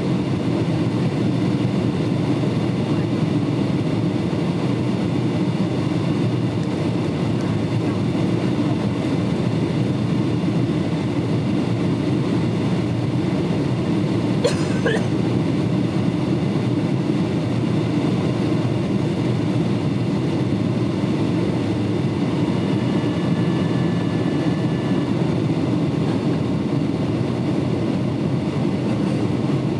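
Steady cabin noise inside a Boeing 757 airliner on descent: the low rumble of the engines and the airflow. A brief click comes about halfway through.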